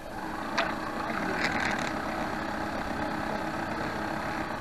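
Small model-boat motor running with a steady hum, heard close up, with a short sharp sound about half a second in and a brief louder patch around a second and a half.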